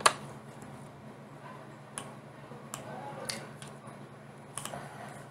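Scattered single clicks from a computer keyboard and mouse: a sharp keystroke at the start, then four lighter clicks spread between about two and four and a half seconds in, over a faint steady low hum.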